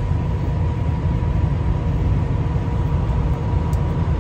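Steady low rumble of an engine running, with a faint steady whine above it.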